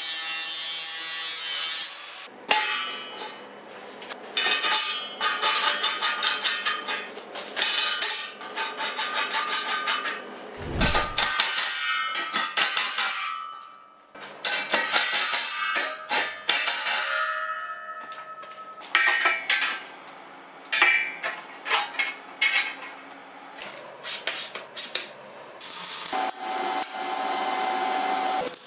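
Steel fabrication sounds. For about the first two seconds an angle grinder cuts steel. After that come repeated short bursts of a cordless drill-driver working on steel flat bar, with rapid clicking, rattling and metal clanks.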